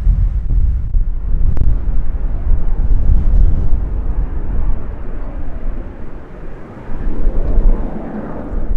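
Wide-body jet airliner taking off, its engines making a deep, steady rumble that dips briefly and comes back loud about seven seconds in.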